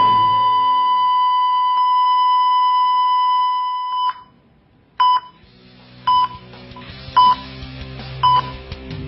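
Heart-monitor sound effect. A continuous flatline tone, the sign of cardiac arrest, cuts off about four seconds in. After a moment of quiet come four short, regular beeps about a second apart, a heartbeat returning, with music coming in underneath.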